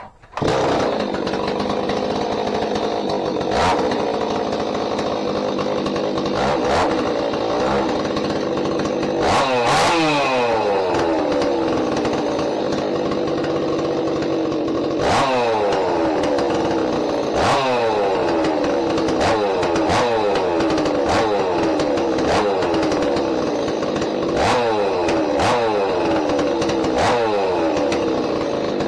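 Stihl 026 (MS260) two-stroke chainsaw with a freshly ported big-bore cylinder, catching about half a second in on its first start-up and running on. Several throttle blips rev it up, and each time the revs fall back down. The owner says it is running rich on this fresh build and needs leaning out.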